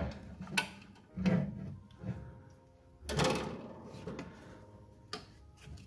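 Metal parts of a pedal box and brake vacuum servo being shifted by hand to line up a bolt: a few sharp knocks in the first second and a half, then a longer scrape about three seconds in.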